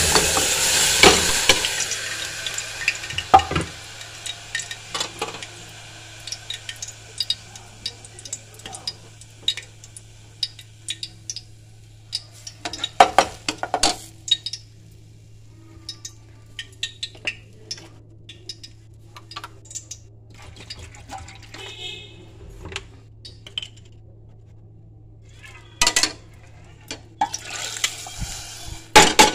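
Rice and dal (mung, masoor and matar) frying and being stirred with a metal ladle in an aluminium pressure cooker. A loud sizzle at the start fades over the first few seconds, then scattered scrapes and clinks of the ladle against the pot follow, over a low steady hum.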